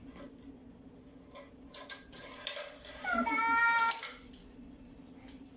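Light clicks and clinks of tent poles and fittings being handled and hooked together. About three seconds in comes the loudest sound, a single short meow-like squeal just under a second long that starts with a quick rise in pitch.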